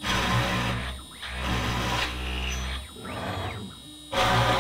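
A CNC router's spindle drilling holes in melamine-faced chipboard with loud, noisy cutting. From about three seconds in there is a quieter gap in which the stepper motors whine up and then down in pitch as the gantry moves to the next hole. Cutting starts again near the end.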